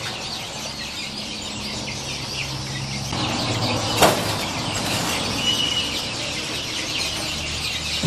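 Free-range chickens clucking and cheeping, a busy steady chatter of many small high calls, with one sharp thump about four seconds in, the loudest moment.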